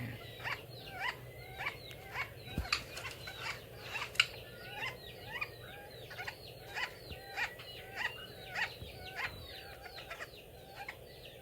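White-rumped shama (murai batu) giving a rapid series of short, sharp chirps and clicking calls, several a second. The bird is sick with a hoarse, coughing throat, which its keeper suspects is an inflammation.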